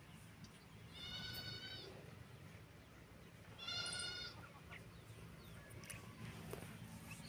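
Two drawn-out, high-pitched animal cries, each just under a second long, about two and a half seconds apart, over a faint steady low hum.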